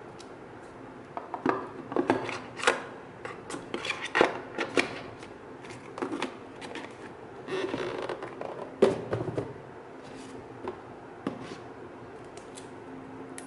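Unboxing handling noise: plastic charger parts and the cardboard box tray being tapped, clicked and slid, as a run of irregular clicks and knocks with a longer scraping rustle about two thirds of the way through.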